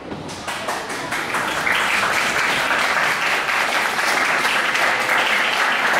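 Audience applauding, swelling over the first couple of seconds and then holding loud and steady.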